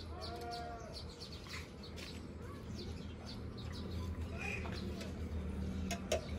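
Outdoor ambience: a steady low hum under frequent short bird chirps, with one brief high-pitched call about half a second in.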